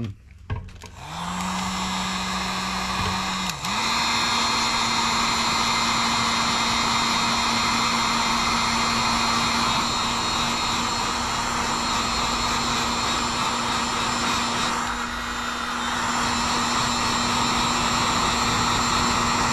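Electric heat gun switched on about a second in, blowing steadily with a fan hum; about three and a half seconds in its pitch steps up and it gets louder, then it runs on steadily.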